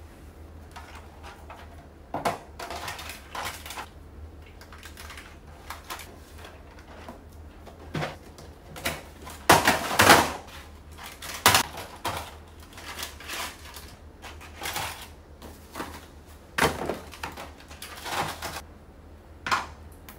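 Irregular clicks, knocks and rustling of packaging and plastic containers being handled on a kitchen counter: a cardboard snack box opened and its packets tipped out and set into a plastic organizer, with the loudest cluster about ten seconds in.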